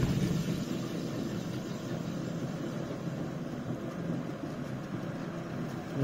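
A washing-machine universal motor, with a heavy aluminium drum on its shaft, running steadily off a lead-acid battery: an even whir at constant speed.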